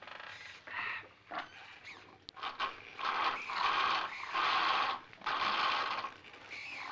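Lo-fi synthetic cartoon squawks, a comedy sound-effect animal call: about seven short calls in a row, each under a second, with brief gaps between them.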